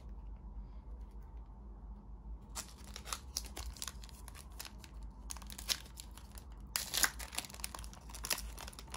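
A basketball trading-card pack's wrapper being torn open and crinkled by hand: a run of sharp crackles starting about two and a half seconds in, thickest near the end.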